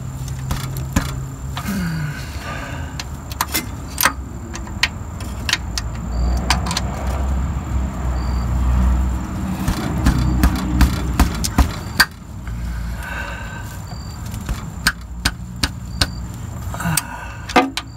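Metal clinks and taps from a wrench on the 14 mm lower starter mounting bolt as it is worked loose by hand, irregular sharp clicks throughout. A low rumble swells in the middle.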